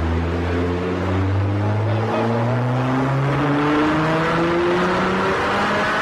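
GT sports car engine accelerating, its note climbing steadily in pitch, with a brief break about two seconds in.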